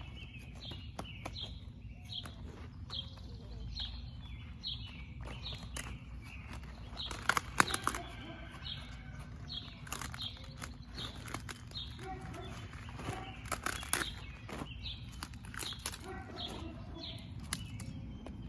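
Large cabbage leaves crackling and snapping as whole plants are pulled and stripped, loudest about seven and again about thirteen seconds in. Behind it a bird gives short falling chirps over and over, with a low steady background rumble.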